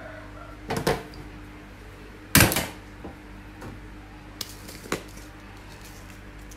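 Kitchen containers and utensils being handled and set down on a stainless steel counter: several separate knocks and clatters, the loudest about two seconds in, over a steady low hum.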